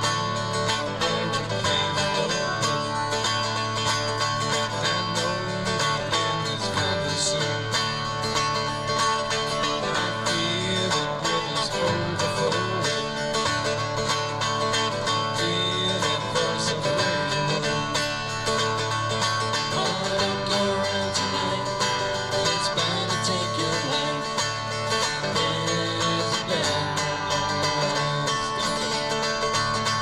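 Buskers playing a tune on acoustic guitars, plucked and strummed without a break.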